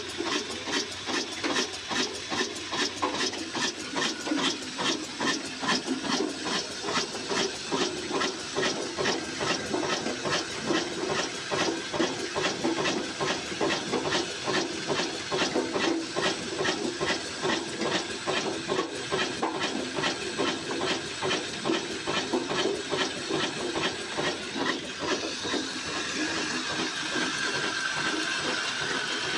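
Old 22 hp single-cylinder horizontal diesel engine of the Ruston type running steadily with an even, rhythmic exhaust beat while belt-driving a flour mill. Near the end the beat gives way to a steadier whir of belts and milling machinery.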